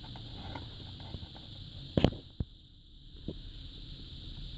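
A screwdriver clicking against the tabs of a JVC KD-G401 car radio's sheet-metal casing as it is pried open. The loudest is a sharp knock about two seconds in, with a smaller one just after.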